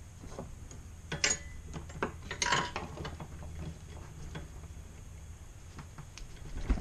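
A hand tool clinking and scraping on the metal motor mount of a ZJ4110 drill press as the motor's position is adjusted, with light clicks throughout, two louder scrapes about a second and two and a half seconds in, and a knock near the end.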